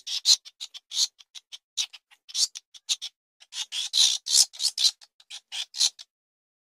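Rat squeaking: a quick, irregular string of short, high-pitched squeaks that stops near the end.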